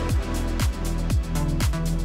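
Background music with a steady kick-drum beat, about two beats a second, over sustained synth tones.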